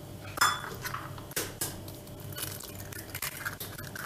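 Eggs being cracked against the rim of a plastic mixing bowl: a series of sharp taps and eggshell cracks.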